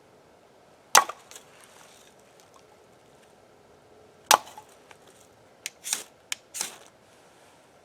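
Wood being chopped by hand: two sharp wooden strikes about three seconds apart, followed by a quick run of lighter cracks and scrapes.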